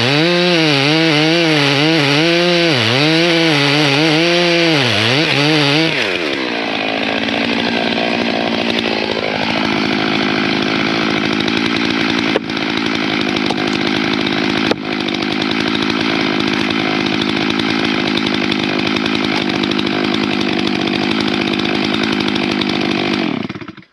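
Stihl MS 661 two-stroke chainsaw cutting the face-cut wedge into a tree trunk. Its engine pitch wavers up and down under load for about six seconds, then it runs more steadily and a little quieter until it stops suddenly near the end.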